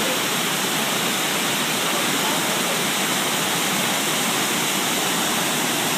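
A 96-foot waterfall: steady rushing noise of falling water, even and unbroken.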